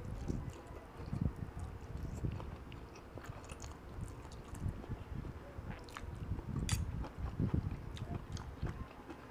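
Mouth noises of someone chewing a mouthful of jajangmyeon (Korean black bean noodles), a run of soft repeated chews. A few light clicks, one sharper about six and a half seconds in.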